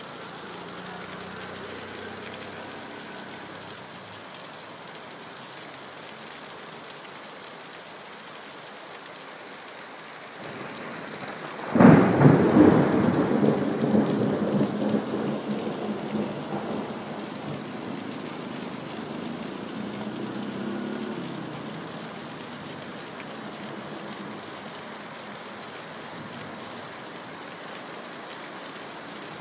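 Steady rain falling, with a thunderclap about twelve seconds in: a short build, a sharp crack, then a rumble that fades away over some ten seconds.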